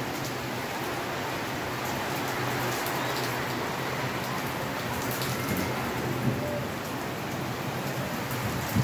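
Steady rain falling on wet ground and puddles, with scattered drops ticking, and a brief low thump right at the end.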